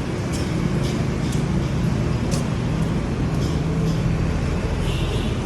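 Steady low rumble with a faint hum, like a running engine or motor, with several light clicks and taps on top.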